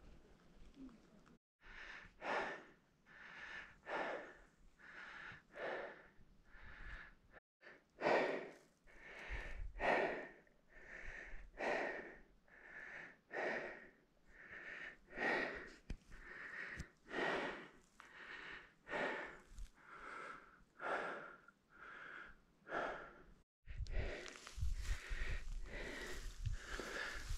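A hiker breathing hard and rhythmically from exertion, about one breath every second or less. Near the end a steadier rustling hiss takes over.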